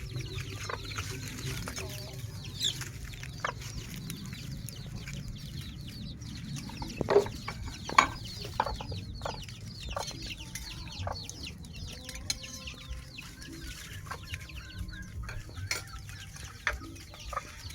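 Chickens clucking throughout, with a few sharp clicks, the loudest about seven and eight seconds in.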